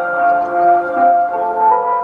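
Japanese municipal disaster-prevention radio time-signal chime: a melody of sustained, overlapping bell-like notes played through a TOA outdoor loudspeaker, with a new note about every half second. The tone is slightly hoarse.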